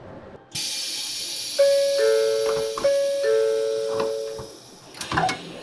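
N700S Shinkansen stopping at a station: a sudden loud hiss of air starts about half a second in, and a two-note door chime sounds twice as the doors open, followed by a couple of knocks near the end.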